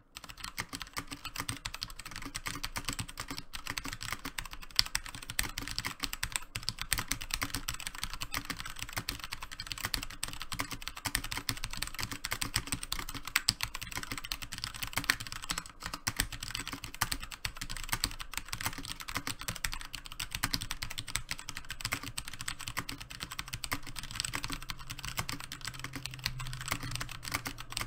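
Continuous typing on an E-Blue K727 mechanical keyboard with Kailh Brown switches, tactile Cherry MX Brown clones: a dense, steady run of key clacks.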